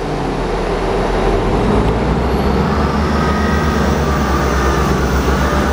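Class 159 diesel multiple unit's underfloor diesel engines running right beside the platform, a low pulsing rumble that grows heavier about two seconds in.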